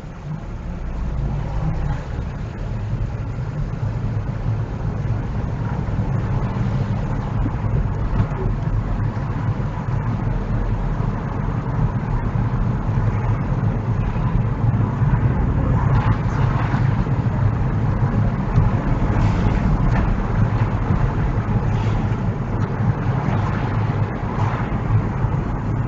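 Car being driven, steady engine and tyre rumble heard from a dash cam inside the car. It gets louder over the first couple of seconds as the car picks up speed.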